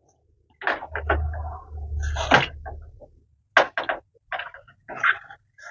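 Kitchen items being handled and set down on a counter during tidying: irregular knocks, clacks and scrapes, with a low rumble for a couple of seconds early in the series.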